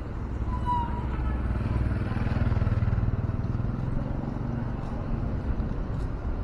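Motorcycle engine passing close by, its rumble swelling to the loudest about two to three seconds in and then fading, over general street noise.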